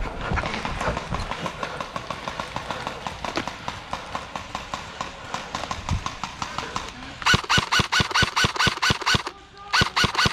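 Airsoft gun firing a rapid string of shots, about seven a second, for two seconds, then again just before the end. Before that, a quieter clatter of small ticks.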